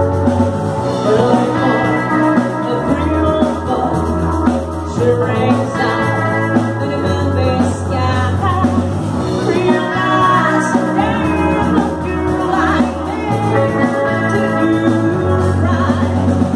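Live rock band playing: a woman singing over electric guitars, a drum kit and a bass line that holds long low notes.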